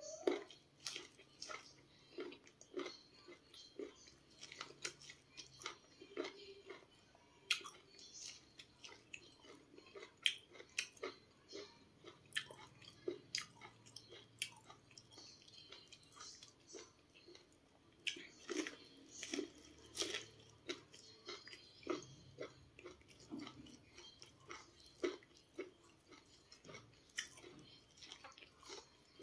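Close-up chewing of cooked sweet corn kernels bitten off the cob: irregular chewing clicks, several a second.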